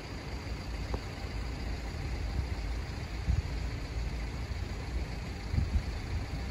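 Wind buffeting the microphone: an uneven low rumble with a few thumps over a steady hiss.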